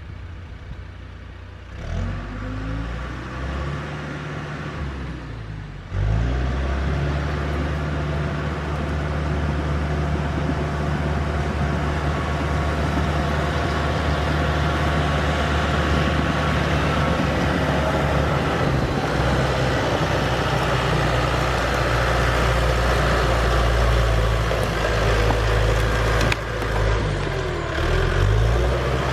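An engine running: it rises briefly in pitch about two seconds in, then from about six seconds on a louder, steady low engine note holds, wavering briefly near the end.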